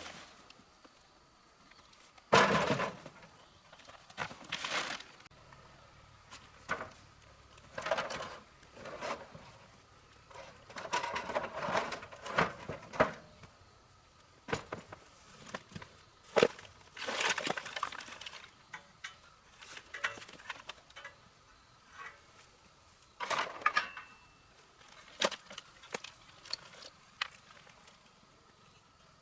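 Irregular knocks, clatters and short scrapes of parts and tools being handled during repair work, scattered across the stretch with quiet gaps between. The sharpest knocks come about two seconds in and about sixteen seconds in.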